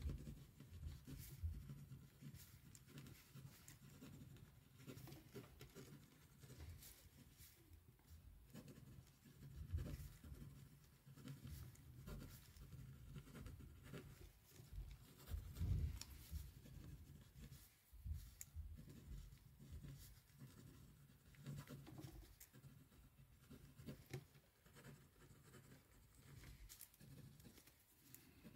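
Faint scratching of handwriting on paper at a desk, with soft low bumps now and then, the clearest about ten and sixteen seconds in.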